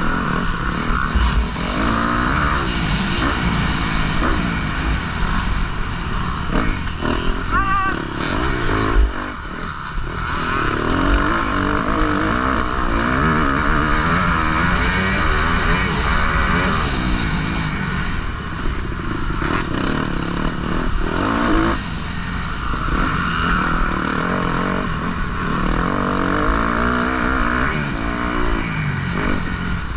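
Motocross bike engine revving hard, its pitch rising and falling over and over as the rider accelerates and shifts, heard from a helmet-mounted microphone with steady rushing wind and noise.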